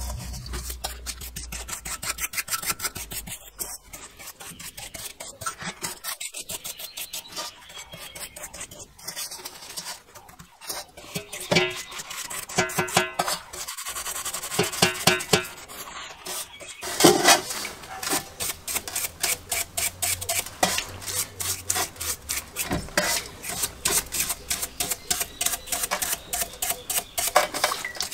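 Stiff brush scrubbing a rusty, grimy small-engine fuel tank in a basin of cleaning liquid, with rapid, uneven back-and-forth scraping strokes.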